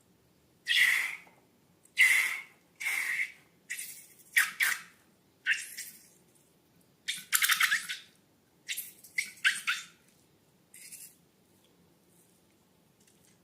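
A string of about eleven short squishing and squeaking sounds, with a longer rapid sputtering one about halfway through, as slime and balloons are squeezed and handled.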